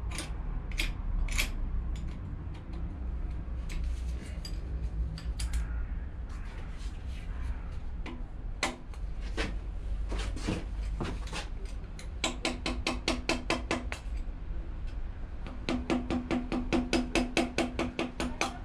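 A pin tapped with a hammer against the threaded spindle collar of a vertical mill head to unscrew it. First come scattered knocks and metal clinks, then two fast runs of light taps, about nine a second, each with a ringing tone.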